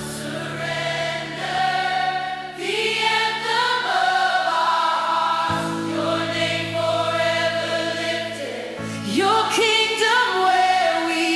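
Christian worship music: a choir singing long held notes over sustained low chords, the chords changing twice.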